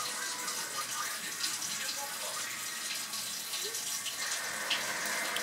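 Water running steadily from a kitchen tap, an even hiss.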